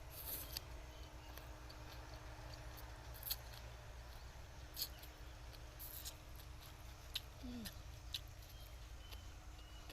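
Faint chewing of raw vegetables and papaya salad, with a handful of sharp crisp crunches spread a second or so apart, over a steady low hum.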